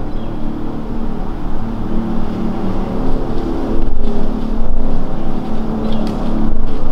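An engine running steadily, a constant hum with a low rumble underneath and a few faint clicks.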